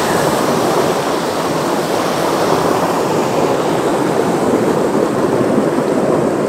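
Shallow mountain stream water rushing and splashing close by, a steady wash of noise.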